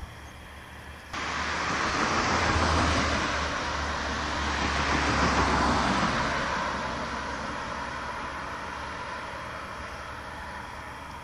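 Road traffic: motor vehicles passing on a road, tyre and engine noise cutting in about a second in, swelling twice with a low rumble, then fading away slowly.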